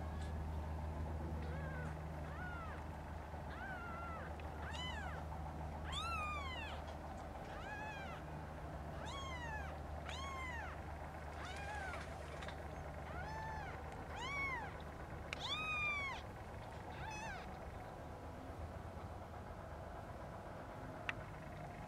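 Newborn kittens, eyes still closed, mewing: a run of short, high-pitched mews, each rising then falling in pitch, about one a second, stopping about 17 seconds in.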